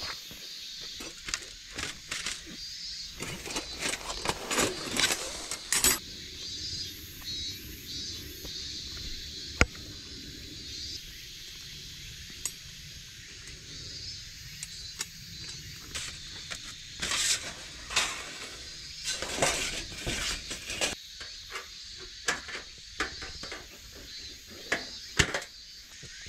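Gloved hands handling the steel parts of a folding fire pit: scrapes, rustles and light metallic clinks as rods and plates are fitted together, with one sharp click in the middle. Insects chirp steadily behind.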